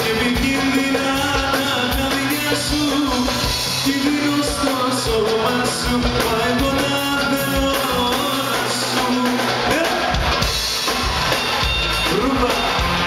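Live band music with a male voice singing over it and a goblet drum (toumbeleki) played by hand.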